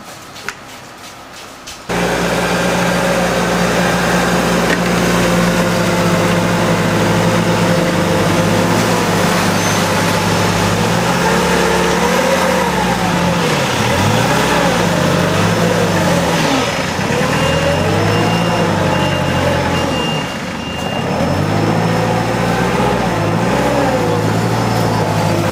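Engine of a compact municipal snowplough, a small gritting vehicle with a front plough blade, running close by. It comes in loudly about two seconds in with a steady hum, and in the second half its note rises and falls again and again as the engine speeds up and slows.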